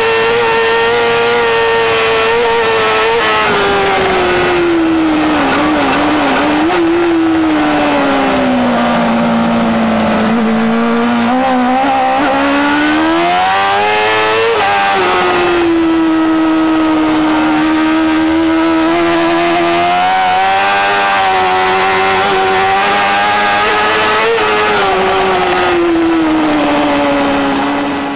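Racing superbike engine at full race speed, heard from an onboard camera with wind rush behind it. The engine note falls steadily to a low point about ten seconds in as the bike slows, climbs again, then holds a high, fairly steady pitch with brief rises and dips. It fades out at the end.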